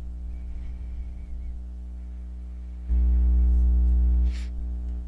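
Steady electrical mains hum with a buzzy stack of evenly spaced overtones. About three seconds in it jumps much louder for a second and a half, then drops back with a short click.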